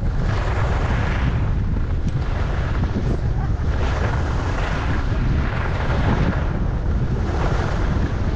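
Wind buffeting the microphone of a skier's body-worn camera during a downhill run, as a heavy steady rumble. Over it, the hiss of skis on groomed snow swells and fades about once a second with the turns.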